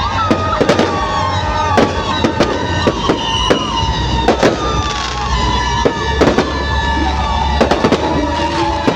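Fireworks bursting overhead: a rapid, irregular string of sharp bangs and crackles, several a second, against a steady background of tones and whistles.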